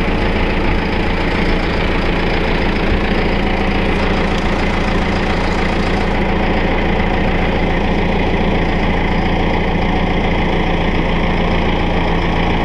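John Deere 6330 tractor's diesel engine idling at steady low revs, close by.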